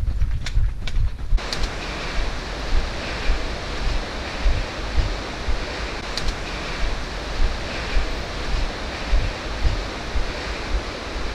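Wind buffeting the microphone with a low rumble and a steady hiss, which sets in about a second in, with regular soft footfalls of someone hiking uphill.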